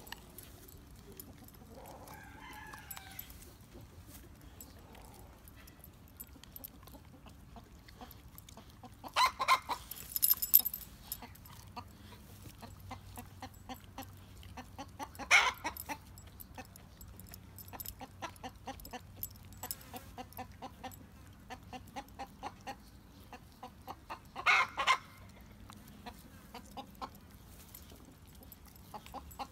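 A dog gnawing and tearing raw meat off bones, with frequent small wet chewing clicks and crunches. A few louder short bursts stand out, about ten, fifteen and twenty-five seconds in.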